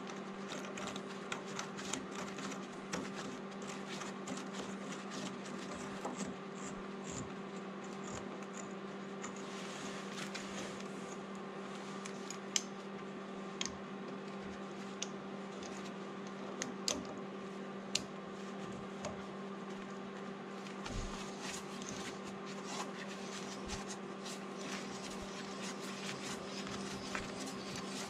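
A 5/8-inch, 18-thread hand tap turned by a tap wrench, cutting threads in a hole in an engine's crankshaft end: scattered light clicks and ticks as the tool is worked, a few sharper ones about halfway through. A steady low hum runs underneath.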